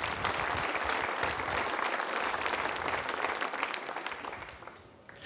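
Audience applauding to welcome a speaker onto the stage, the clapping fading out near the end.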